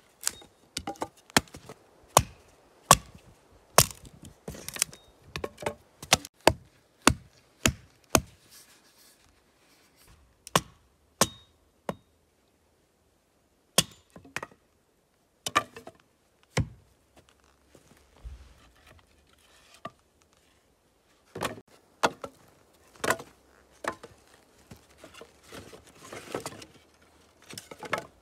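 A hatchet is driven with a wooden baton into a thin upright pole on a chopping block, splitting it lengthwise into boards. A run of sharp wooden knocks and cracks, quick at first, then spaced out after a short pause, with another busy cluster of knocks near the end.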